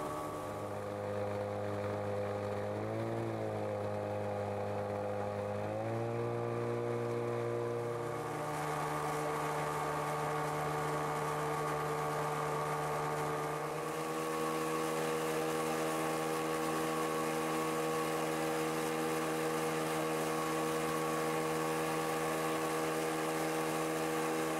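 Motorboat engine running steadily under way. Its pitch dips and recovers briefly twice in the first few seconds, then holds steady.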